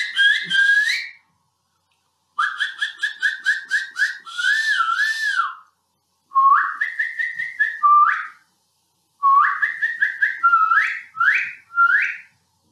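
A man whistling through pursed lips to imitate birdsong: four bursts of quick, rising chirps and warbling trills with short pauses between them.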